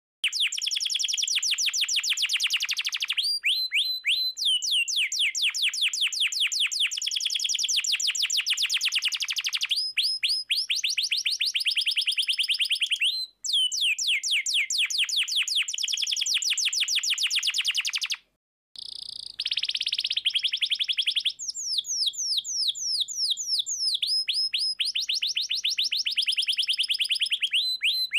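Domestic canary singing a long rolling song: rapid trills of repeated falling notes, now faster, now slower, with two very short breaks.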